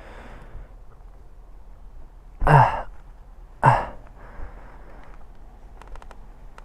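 A person breathing out hard twice, about a second apart, in loud breathy huffs like sighs.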